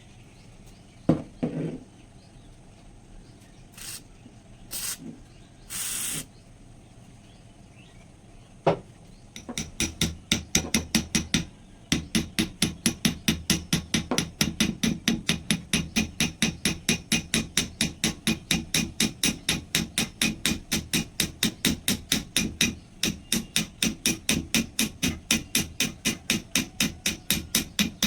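A few separate knocks, then from about ten seconds in a steady run of sharp strikes at about four a second: a hand tool beating or working on the rusted knife.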